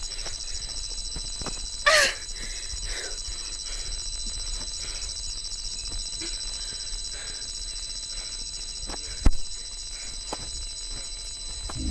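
Night insects, such as crickets, chirping steadily in a high, pulsing chorus. About two seconds in there is a short high squeal that bends in pitch, and about nine seconds in a single sharp click.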